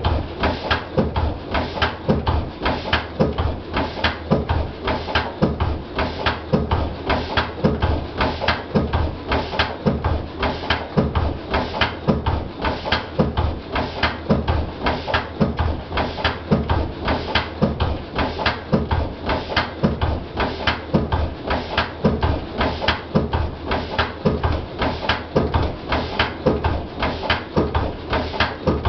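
Lister CS slow-speed stationary diesel engine running steadily, each power stroke an even, sharp beat in a rapid regular rhythm.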